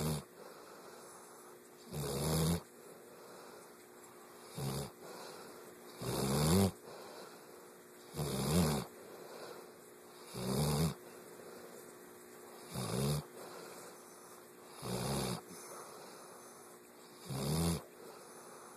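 Steady, rhythmic snoring: a rough, buzzing snore about every two seconds, nine in a row.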